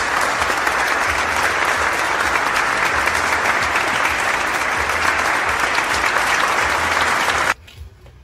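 Loud applause, a dense steady clapping hiss with a low regular beat underneath, cutting off abruptly near the end.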